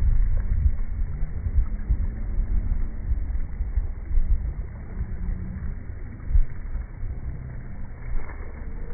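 Wind buffeting the microphone: a low, uneven rumble that surges and dips, with a few stronger gusts.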